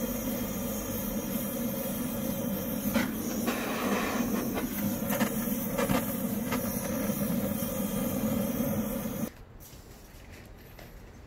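Handheld butane canister torch running with a steady, loud hissing flame as it is held to charcoal briquettes and rice husk in a grill's charcoal basket to light them. The torch sound stops suddenly about nine seconds in.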